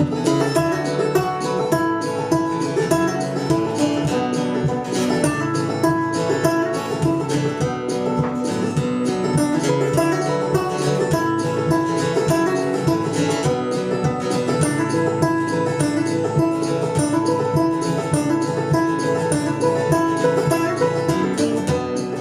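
Live acoustic band playing an instrumental break in a country-style song, led by plucked string instruments, with no singing.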